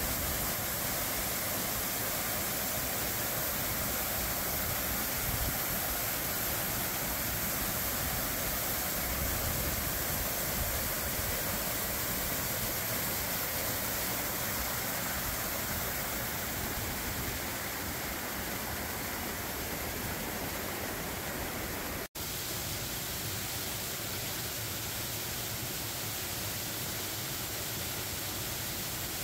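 Waterfall, a steady rushing of falling water. The sound cuts out for a moment about 22 seconds in, then carries on slightly quieter.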